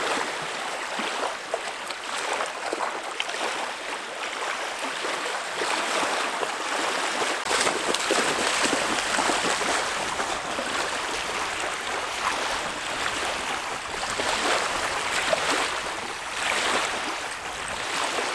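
Small lake waves lapping and washing on a sandy shore, a steady rushing wash that swells and eases.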